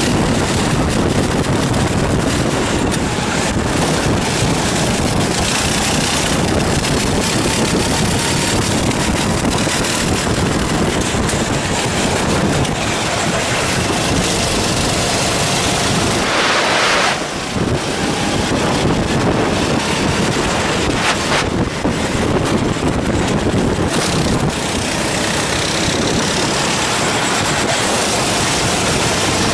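Onboard sound of a Sodi endurance kart's engine running at racing speed, mixed with heavy wind buffeting on the microphone. About seventeen seconds in the engine sound dips briefly and a rush of hiss takes over.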